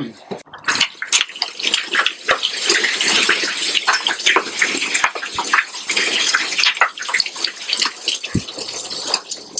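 A bucket of ice water pours over a man's head and splashes onto him and the table, with many sharp splashes and clatters, running on as the water drains off.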